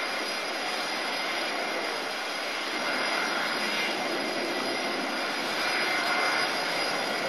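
Airbus A330-200's twin Rolls-Royce Trent 700 turbofans at takeoff thrust as the airliner lifts off and climbs away: a steady rushing jet noise that swells a little twice.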